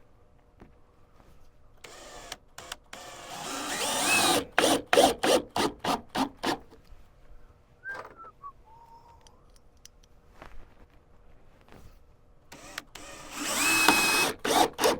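Cordless drill driving screws into wood, twice. Each time the motor whine builds for a second or two, then breaks into a quick run of short spurts as the screw is run home.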